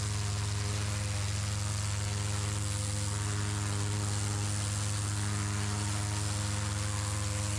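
Pressure washer running with a steady low hum, its lance jet hissing as it sprays water onto slate roof tiles.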